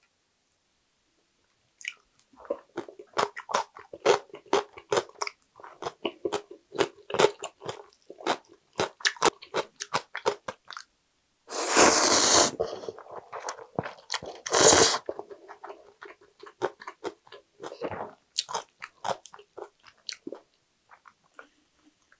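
Close-miked eating of ramen noodles: quick wet chewing and smacking clicks starting about two seconds in, then a loud slurp of noodles about twelve seconds in and a shorter one near fifteen seconds, followed by more chewing.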